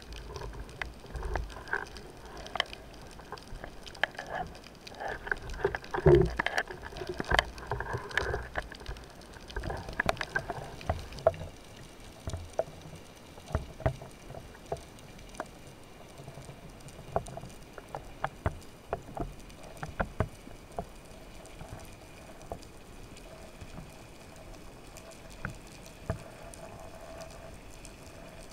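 Muffled underwater sound through a camera housing: water movement with irregular knocks and clicks of the speargun and gear, busiest and loudest in the first ten seconds, then quieter with a faint steady hum and scattered clicks as the diver descends.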